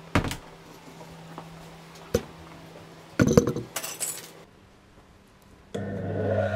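Small metal pieces clinking and rattling on a wooden workbench about three seconds in, after a couple of single knocks. Near the end a bench disc sander's electric motor is switched on and starts running with a steady hum.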